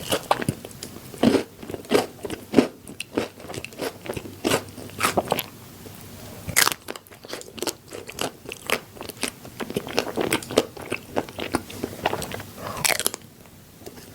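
A person biting into and chewing crunchy food, with many short, irregular crunches several times a second and a brief lull about six seconds in.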